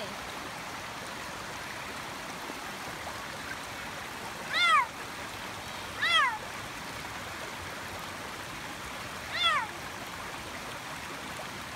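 Savannah cat meowing three times, short calls that rise and fall in pitch, the last a few seconds after the first two, over the steady rush of a shallow rocky creek.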